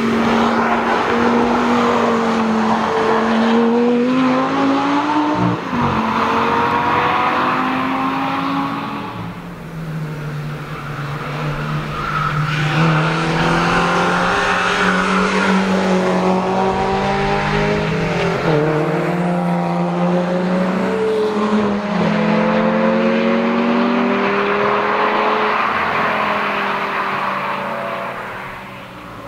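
Cars driven hard past the trackside one after another, their engines revving up through the gears, the pitch climbing and breaking at each gear change and pass. First comes an Audi R8 GT's 5.2-litre V10, and a Mercedes 190E goes by about halfway.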